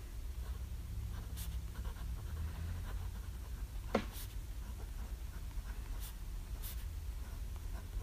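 Pilot Custom 823 fountain pen with a medium nib scratching across Rhodia 90 gsm paper in short writing strokes, with a sharp tick about four seconds in. A steady low hum sits underneath.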